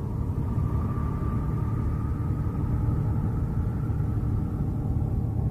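A steady deep rumble with faint held tones above it, which fade out about four and a half seconds in.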